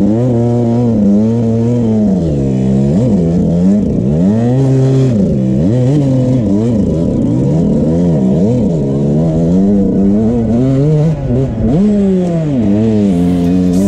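Dirt bike engine revving up and down over and over as it is ridden along a trail, its pitch rising and falling every second or two, with a brief dip about eleven seconds in.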